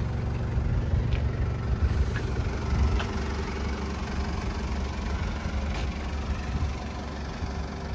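An engine idling steadily with a low rumble.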